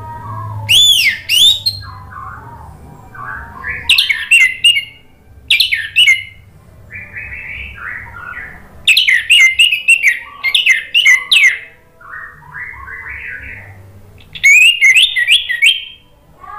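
Orange-headed thrush (anis merah) singing. Loud phrases of sweeping whistles and rapid notes alternate with quieter, lower warbled passages, five loud bursts in all, over a faint steady low hum.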